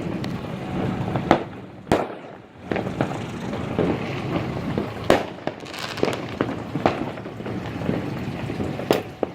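Fireworks and firecrackers going off: a continuous crackle of bursts broken by a few sharp, loud bangs, about two seconds in, near five seconds and near the end.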